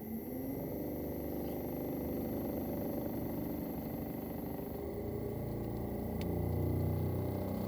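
Daikin ARN22HS mini-split outdoor unit with its inverter-driven swing compressor running up in speed, a steady hum whose pitch climbs; a lower tone joins about five seconds in and the sound gets a little louder. This fits the compressor's full acceleration on going back to heating after defrost.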